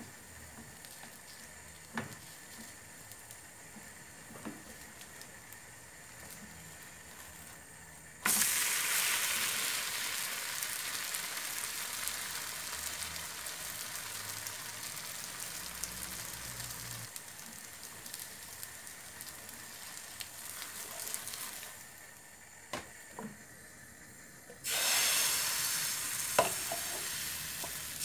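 Crepe batter sizzling in a hot nonstick frying pan. After a quiet stretch with a few light clicks, a loud sizzle starts suddenly about eight seconds in as the crepe goes back down after being flipped, and slowly dies away. A few seconds before the end a second sudden sizzle starts as fresh batter is poured into the hot pan, with one sharp clink.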